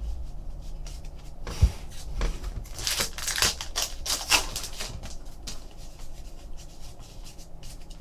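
Trading cards and packaging being handled on a table: a single thump about a second and a half in, then a stretch of quick rustling and sliding that eases off after about five seconds.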